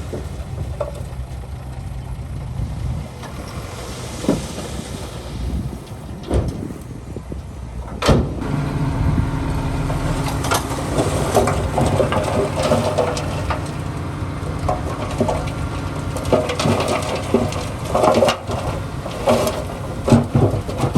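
Diesel engine of heavy earthmoving machinery running steadily, with metallic clanks and rattles. A sharp knock comes about eight seconds in, after which the sound grows louder and busier.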